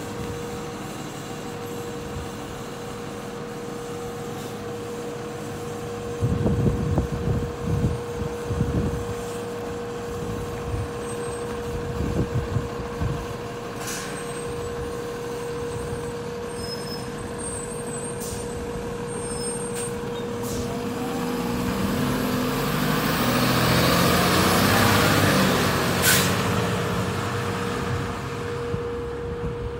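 Fire engine's diesel engine running as the truck pulls out of its bay, with a short sharp air-brake hiss about halfway through and a louder one near the end. The engine swells as the truck accelerates away, then fades; a steady hum runs underneath.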